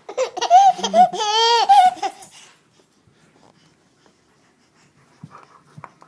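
A baby laughing: a quick run of giggles going into a long, high squealing laugh with a wavering pitch, over after about two and a half seconds.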